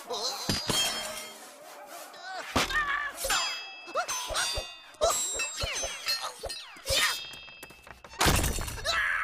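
Cartoon sound effects of a heavy steel sword: a run of sharp metallic clangs, each ringing on afterwards, mixed with short squeaky cartoon vocal squeals. A heavy crash comes near the end.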